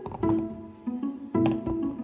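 Background music: a light melody of plucked, pizzicato-style notes, a few per second.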